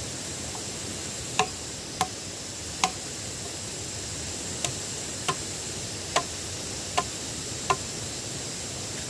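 Eight sharp knocks at uneven intervals, each with a brief hollow ring, like a tool striking wood or pipe, over a steady hiss.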